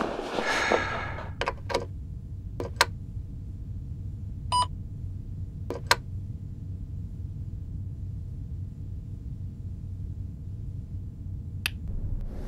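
Several sharp separate clicks of a digital alarm clock's top buttons being pressed, with one short electronic beep about four and a half seconds in, over a low steady room hum.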